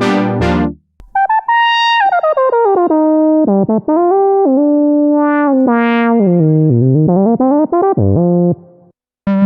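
Software synthesizer patch (Omnisphere 3) played on a keyboard: a short chord stab at the start, then a single-note lead line that slides smoothly between notes, gliding down, swooping back up and down again before stopping about eight and a half seconds in. A new sustained synth sound comes in just at the end.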